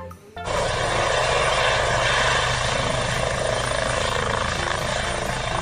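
A helicopter running steadily: rotor and engine noise with a fast, even blade beat. It starts about half a second in.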